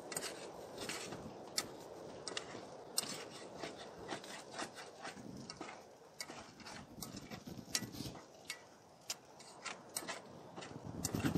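Eggs frying in a skillet on a small titanium wood-burning tent stove: a light sizzle with many irregular sharp pops and crackles. A louder low rustle comes in near the end.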